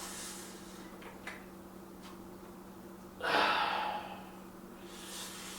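A man breathing hard from weightlifting exertion: soft breaths, with one loud, forceful exhale about three seconds in. A steady low hum runs underneath.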